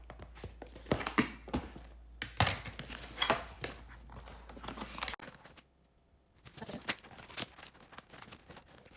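A cardboard box being pried and torn at by hand as it resists opening: scattered sharp scrapes, tears and clicks, with a brief lull a little past halfway.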